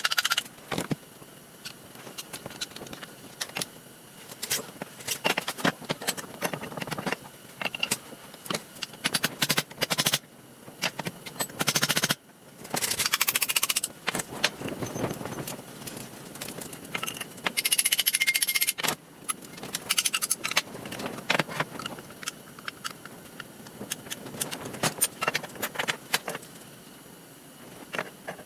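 Hand tools and the metal and plastic parts of a Hart reciprocating saw being taken apart for scrap: many small clicks, knocks and clinks, with a few longer bouts of scraping and rattling.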